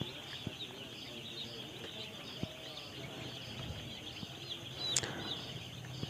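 A flock of three-day-old chicks peeping continuously, a dense chorus of high chirps. There is a single sharp click about five seconds in.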